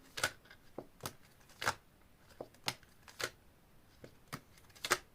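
Tarot cards being handled on a table: about ten short, sharp snaps and taps, unevenly spaced.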